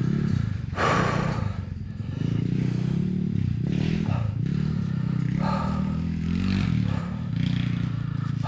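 Kawasaki KLX250 dirt bike with a 363 cc big-bore kit, its single-cylinder four-stroke engine running on a rough, rocky trail, the engine note rising and falling with the throttle. Short bursts of clatter and scraping from the loose rocks under the bike come about a second in and again several times later.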